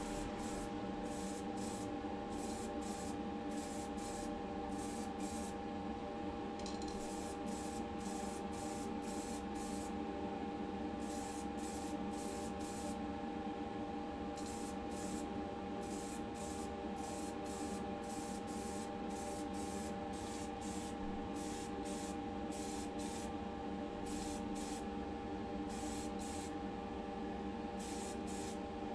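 Primer spraying onto a small diecast casting in many short hissing bursts, roughly one or two a second with a few brief pauses, over a steady hum.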